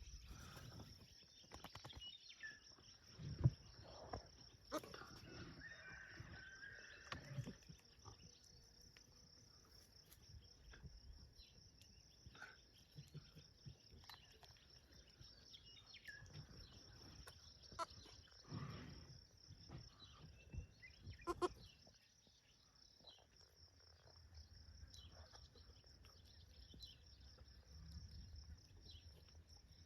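Faint, steady high-pitched insect trill, with scattered soft knocks and rustles.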